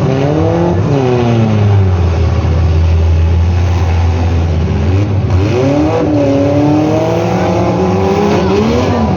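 Full-size demolition derby cars' engines revving up and down over a steady low engine drone. The pitch climbs about half a second in and again around five and a half seconds, then falls away near the end.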